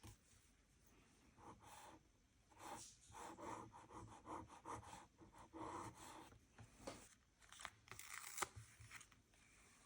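Faint paper-crafting sounds: irregular rustling and tearing scrapes of paper being handled, with a couple of sharp taps in the latter part.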